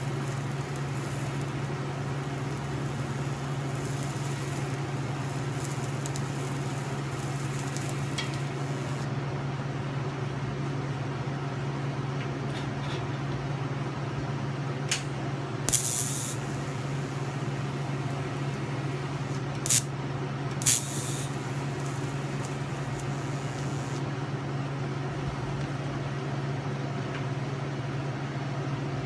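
A steady low machine hum, with four short, sharp hisses about halfway through.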